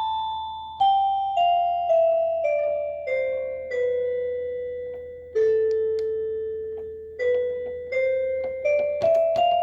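Electronic keyboard playing single notes one after another, each struck and fading away. The notes step down a scale to a long, held low note about five seconds in, then climb back up step by step.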